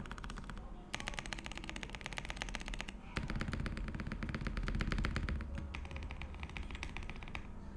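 Fast typing on a Zuoya GMK67 mechanical keyboard with linear switches and PBT keycaps: a rapid, dense run of keystroke clicks that starts about a second in, gets heavier and deeper from about three seconds in, then thins out near the end.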